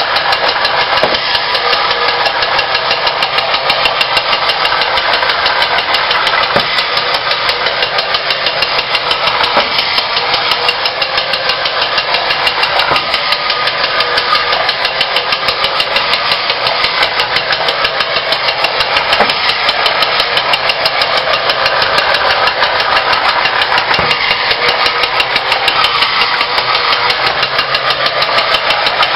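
Battery-operated tin toy spaceship (ME-102 Astronef) running: its small electric motor and gears whir with a fast, even rattle inside the tin body. A few sharp knocks come as the bump-and-go toy hits the walls.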